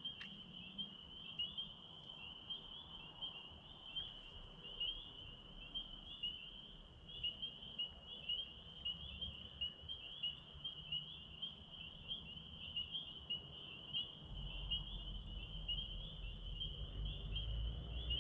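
Night chorus of crickets: a steady, high, pulsing chirring. A low rumble joins in near the end.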